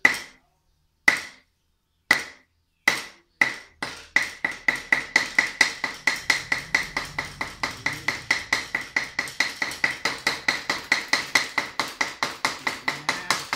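Meat cleaver chopping raw pork into mince on a round wooden chopping block. A few single strikes come about a second apart, then from about four seconds in it turns to fast, even chopping at about four strokes a second. Each stroke has a short ring from the blade.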